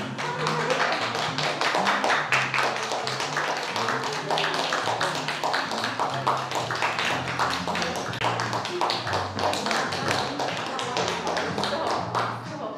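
A small group of people clapping steadily, with music and its stepping bass line playing underneath.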